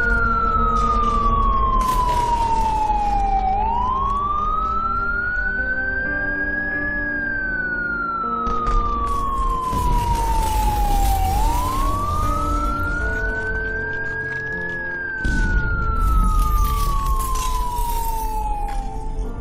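Wailing siren, its pitch sliding down slowly and then sweeping back up, in a cycle that repeats about every eight seconds. About fifteen seconds in, a louder rumble and rushing noise come in beneath it.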